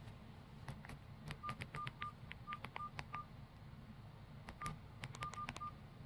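Faint Nokia 108 keypad: a run of button presses, clicking, most with a short single-pitched key beep, in two quick groups.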